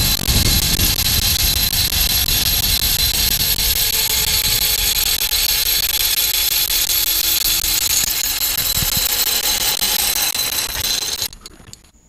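Zip line trolley pulleys running along a steel cable at speed: a loud steady whir with a high whine and a lower tone that slowly drops in pitch as the rider slows, mixed with wind rush on the microphone. It cuts off suddenly about eleven seconds in as the rider comes to a stop at the platform.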